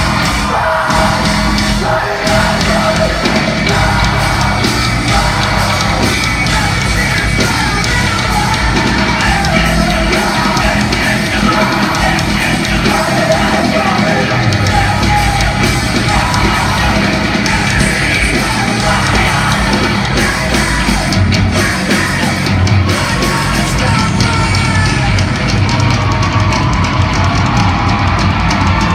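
Live hard rock band playing loud, with distorted guitars, bass and drums, and a vocalist yelling and singing over them.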